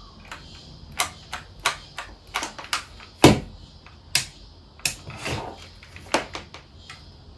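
Ozito corded electric staple gun firing staples through bouclé fabric into a bed frame: a string of sharp, irregular clacks, a dozen or more, the loudest about three seconds in.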